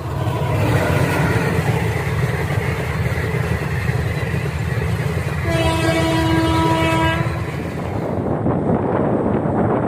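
Twin WDM3D diesel locomotives running with a steady, deep engine rumble. A single locomotive horn blast sounds about halfway through and lasts about two seconds, and a rougher rushing of the passing train takes over near the end.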